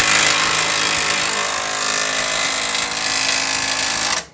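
Impact wrench running steadily on a nut, then cutting off suddenly near the end.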